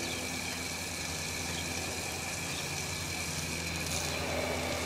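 A steady low engine-like hum throughout, with a garden-hose nozzle spraying water near the end.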